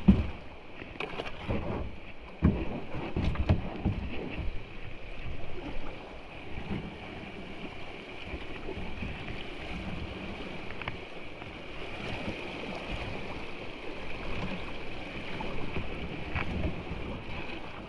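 Kayak moving down a creek: paddle strokes and water splashing against the hull, with a few knocks in the first few seconds over steady running water.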